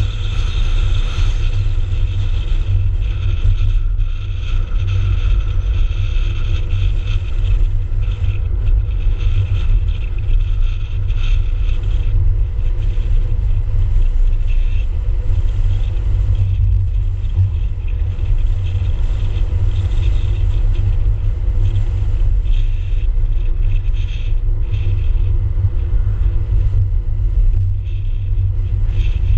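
A car driving along a road, heard as a steady low rumble of wind buffeting and road noise on a car-mounted GoPro's microphone.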